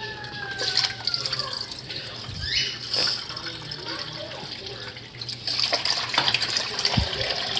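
Water tap running into a sink, splashing as a bird's water dish is rinsed under it. A short falling squeak fades out about a second in.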